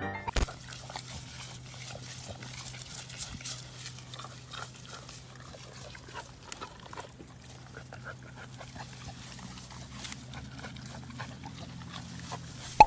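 Kittens play-fighting: many short scuffles and taps with small animal sounds, over a steady low hum.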